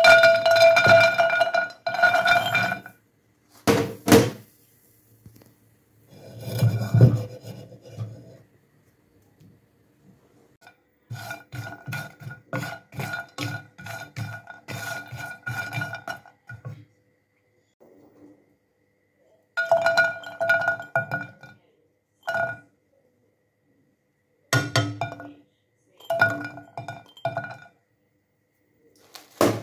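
Almonds and walnuts tipped into a dark metal pan and stirred for dry-roasting: clattering rattles of nuts on the metal, with the pan ringing through each burst. The bursts come and go, several seconds each, with silent gaps between.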